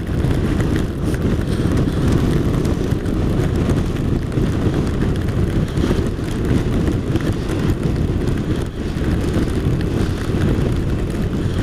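A BMW RT touring motorcycle at steady road speed: constant wind rush with rough low buffeting, mixed with the engine's drone.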